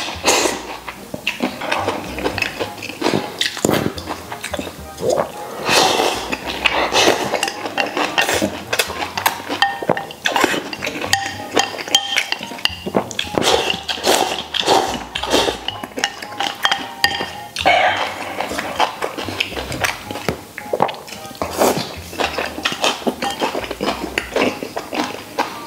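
Eating sounds: noodles slurped from a bowl in repeated short, irregular slurps, with chopsticks clinking against the porcelain bowl, over background music.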